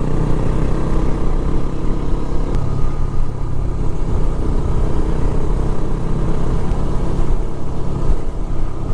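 Motorcycle engine running at a steady cruise, with heavy wind rumble on the rider's microphone.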